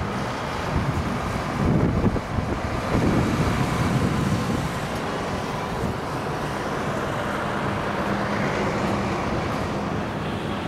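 Steady outdoor rumble and hiss with a faint continuous hum, and wind buffeting the microphone in gusts during the first few seconds.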